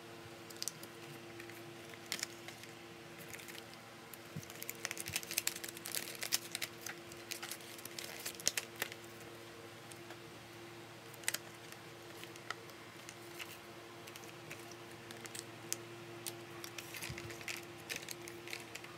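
Plastic blister packaging, a cardboard box and a paper manual being handled while unboxing a small GPS tracker: scattered crinkles and light plastic clicks, busiest a few seconds in and again near the end, over a steady low hum.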